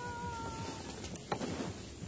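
A long, drawn-out, cat-like wailing cry, one thin held note falling slightly in pitch, which fades out about a second in. This is the strange 'crying' sound the campers are listening for. A single sharp click follows about a second and a half in.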